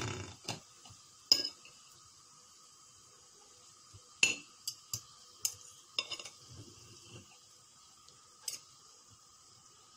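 Metal knife and fork clinking and scraping against a ceramic plate while cutting through a waffle: a scatter of short sharp clinks, with the loudest about a second in and around four seconds in.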